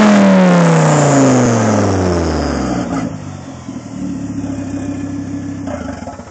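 Volvo C30 T5's turbocharged five-cylinder engine running with an open turbo outlet, the downpipe off at the turbo flange. The revs fall steadily away from a blip and settle to a loud idle, then the sound drops away abruptly near the end, as the engine is shut off.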